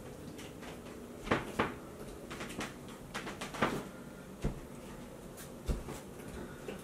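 Scattered clicks and knocks, the loudest about a second and a half in, over a faint steady hum.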